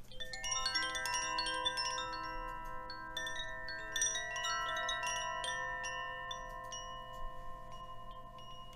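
Chimes ringing: many metal tones struck in a loose random flurry, each ringing on and overlapping the others. The strikes are dense at first and thin out after about five seconds.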